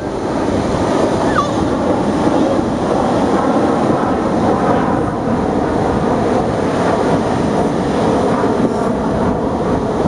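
Ocean surf washing steadily, with wind buffeting the microphone.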